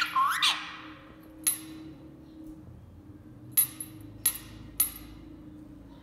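An Indian ringneck parrot gives a short squawk that bends up and then down. It is followed by four sharp, separate clicks on a hard surface over the next few seconds.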